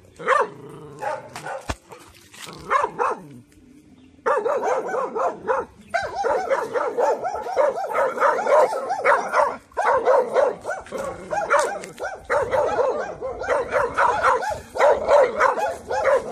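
A young Taiwan dog, just over six months old, barking rapidly at a stranger: alert barking to guard its yard. A few barks come first, then after a short pause about three seconds in, a steady run of several barks a second.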